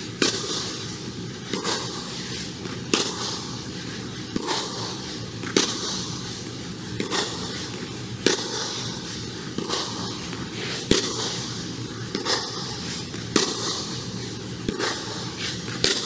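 Tennis rally: the ball is struck by racket strings about every one and a half seconds, a dozen sharp pops in turn from a Wilson Ultra 100 v4.0 strung with Luxilon ALU Power and the partner's racket. Each hit rings on briefly in the echo of the air-dome hall.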